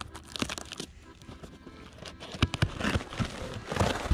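Packing tape being ripped off a cardboard box and the flaps pulled open, in a few ragged tearing bursts, with paper packing rustling.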